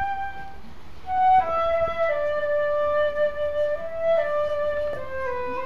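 Transverse flute playing a slow solo melody of long held notes that step mostly downward, with a short break about a second in.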